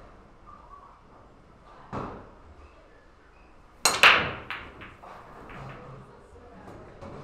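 Pool break shot: the cue strikes the cue ball and, a split second later, the cue ball cracks into the racked balls, about four seconds in. A scatter of smaller clicks follows as the balls hit each other and the cushions. A softer knock comes about two seconds in.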